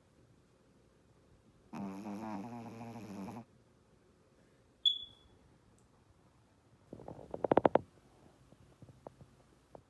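Shih Tzu snoring in its sleep: one long snore from about two seconds in, lasting nearly two seconds, then a quick fluttering burst of rapid pulses around seven seconds in, the loudest sound here. A short high-pitched blip comes about five seconds in.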